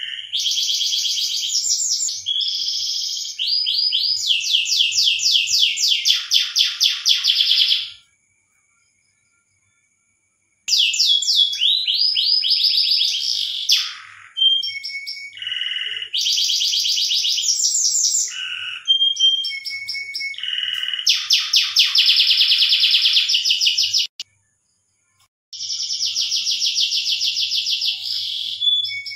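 Domestic canary singing in its breeding song: rapid rolling trills and whistled notes in long phrases, broken twice by short dead-silent gaps.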